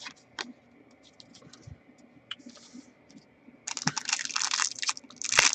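A few faint clicks of cards being handled, then, about two-thirds of the way in, a loud run of crinkling and scratching from a foil trading-card pack wrapper being handled and opened.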